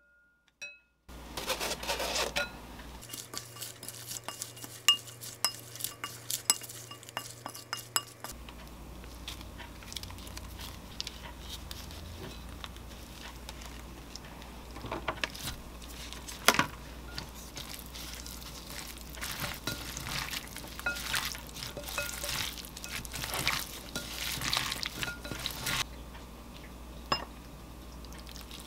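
A wooden spoon clinking, tapping and scraping against a glass mixing bowl as shredded vegetables are tossed in a thick chili sauce. There are many light knocks, in two busy stretches, one of them louder near the middle.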